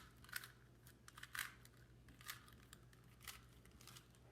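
Faint, uneven plastic clicks of a Rubik's Cube's layers being twisted by hand, a handful of turns a few seconds apart.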